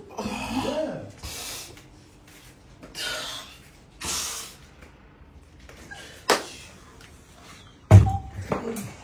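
A person's voice and short breathy sounds in a room, with a sharp knock about six seconds in and a loud thump near the end.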